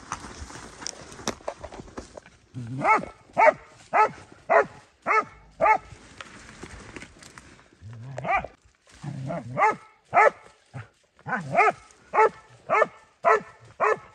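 Dog barking repeatedly, about two barks a second, in two runs, the first about three seconds in and the second from about nine seconds to the end, with a few deeper calls among them.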